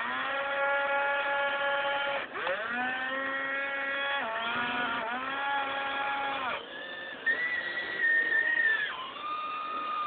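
Radio-controlled model excavator's motors whining as it is worked: each whine rises in pitch, holds for a second or two, then drops, several times over. A higher, thinner whine takes over a few seconds before the end.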